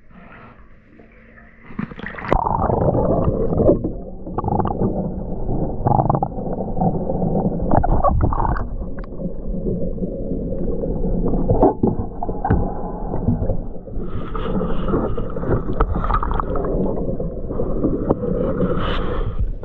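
Muffled sloshing, gurgling and knocking of bathwater heard with the camera under the water in a filled bathtub, as booted feet move about. It starts fairly quiet and turns loud about two seconds in.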